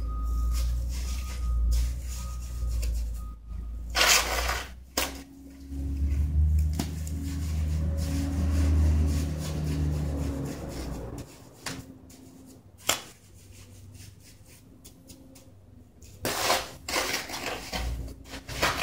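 A hand scoop scraping wet concrete mix out of a plastic mixing tub and tipping it into a steel block mold, heard as scattered scrapes and knocks. A low rumble runs under the first ten seconds or so.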